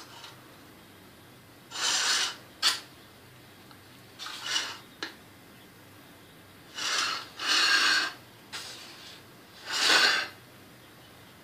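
A table knife scraping around the inside of a metal springform cake pan, in about half a dozen short scrapes with a couple of sharp clicks of the blade on the metal. The scraping loosens a chilled cheesecake from the side of the pan.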